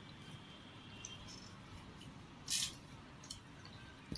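Soft, wet eating sounds: fingers mixing rice and chicken curry on a plate, with small clicks and one short, sharp smack about two and a half seconds in.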